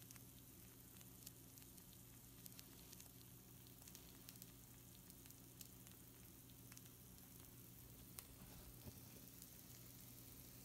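Pizza rolls sizzling faintly on a baking sheet: scattered small pops and crackles over a soft hiss. A steady low hum lies underneath.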